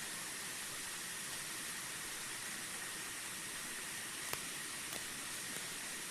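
Steady hiss of rushing water, with a couple of faint clicks about four and five seconds in.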